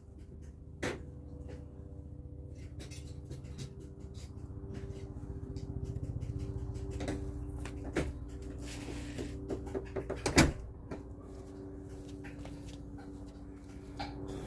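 Hand tools and metal parts clattering during repair work on a petrol lawnmower: scattered knocks and clicks, with a quick run of sharp knocks about ten seconds in as the loudest, over a steady low hum.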